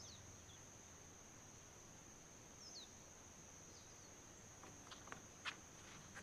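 Near-silent outdoor ambience: a steady high-pitched insect chorus, with a few faint short falling bird chirps and some faint clicks about five seconds in.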